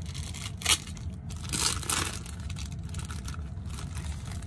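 Clear plastic food wrapping crinkling as it is handled, with a sharp crackle under a second in and a longer rustle around two seconds in, over a steady low hum.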